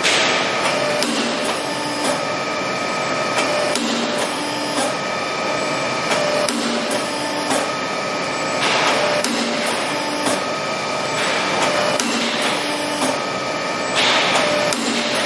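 CNC hydraulic punching machine for steel box-section tube at work: a steady machine hum with repeated sharp clacks, about one to two a second, as the punch cuts rectangular holes. A couple of brief hissing surges come partway through and near the end.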